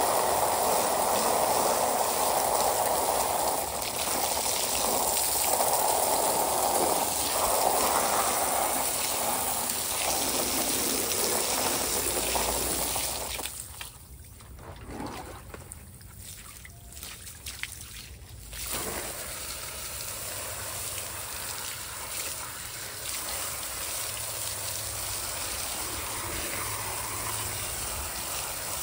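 Water from a garden hose spraying onto a pool filter grid and splashing on concrete. About 13 seconds in it drops to a much quieter thin stream for several seconds, and a softer steady water sound follows.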